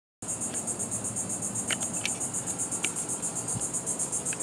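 Insects singing: a high, steady buzz pulsing evenly several times a second, with a few brief faint chirps over it.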